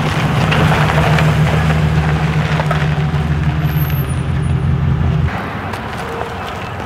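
A motor running loudly and steadily with a low hum while the water tank is being filled. It drops off sharply about five seconds in, leaving a quieter steady running sound.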